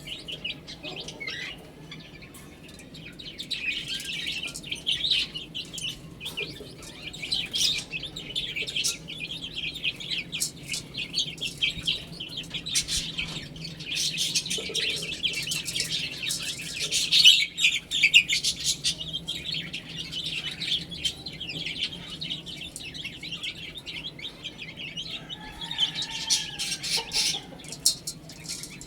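Domestic chicks peeping: a dense flock of high, rapid chirps that keeps on without a break. Near the end a lower, curving call comes in.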